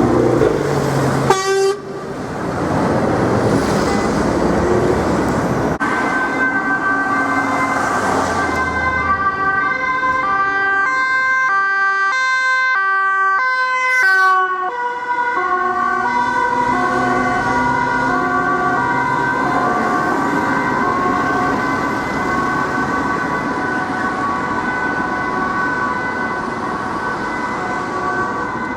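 Road traffic noise, then from about six seconds in a Dutch police car's two-tone siren, switching steadily between a high and a low pitch about twice a second as it passes.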